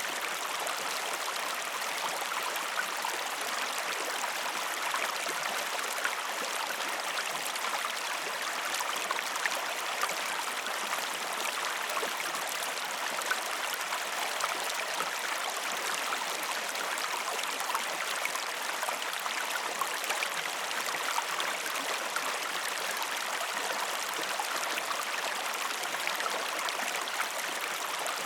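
Steady flow of a calm river, a continuous gentle rush with fine bubbling and trickling.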